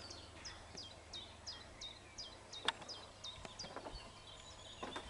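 Songbird calling over and over: a string of short high chirps, each dropping in pitch, about three a second, with a single sharp click about halfway through.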